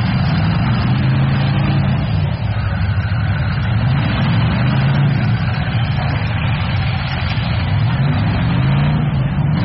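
Demolition derby cars' engines running together, loud and steady, with engines revving up and down several times.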